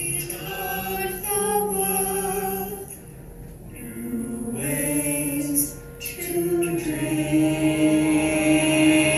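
Music: several voices sing long held notes together, changing pitch every second or two and growing louder toward the end.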